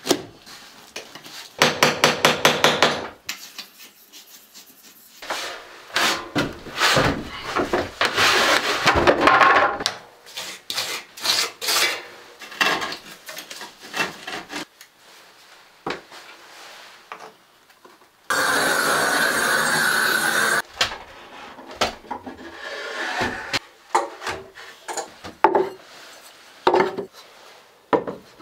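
Carpentry and fitting-out work on wood: boards knocked, rubbed and scraped into place. About one and a half seconds in, a fast, even rattle of a tool lasts about a second and a half. Past the middle, a steady mechanical noise runs for about two seconds.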